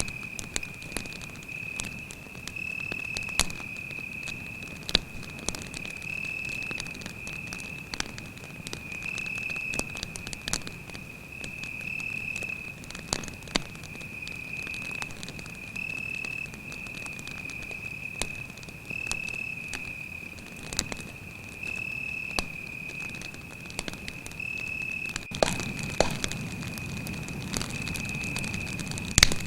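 Campfire crackling with scattered sharp pops over a steady, high-pitched cricket trill. Near the end the fire's low rushing noise grows louder and the loudest pop comes just before the end.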